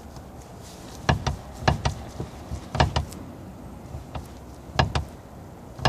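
Rear adjustable camber arm on a BMW E36 knocking: sharp clunks in quick pairs, four pairs and a single one near the end. The knock comes from play in the connection inside the arm itself, while its bolts are tight and its bushes new.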